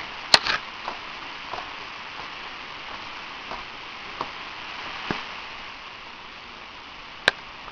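Steady faint hiss of a phone line, broken by a few scattered sharp clicks and crackles, the loudest a single click near the end.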